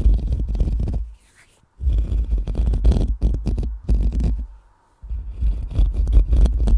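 A microphone being scratched and brushed directly: dense, rough scratching with heavy low rumbling from contact with the mic, breaking off twice for under a second.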